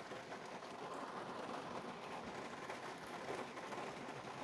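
Steady rain pouring down, a soft, even hiss of falling drops.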